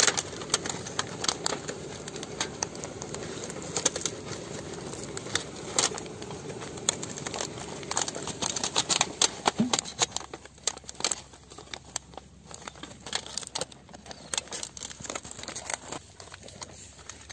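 Thin aluminium foil trays crinkling and crackling as hands press one tray down over another and crimp the foil edges together. The crackles come irregularly and thin out in the second half.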